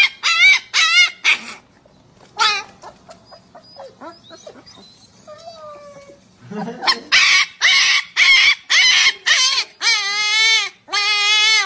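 Husky puppy howling: a run of short high yelps, a stretch of softer short calls, then a quick string of loud yelps and two longer wavering howls near the end.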